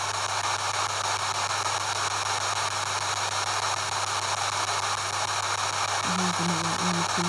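P-SB7 spirit box sweeping down the FM band at 150 ms a step, giving a steady hiss of radio static. About six seconds in, short choppy snatches of a pitched sound break through the static.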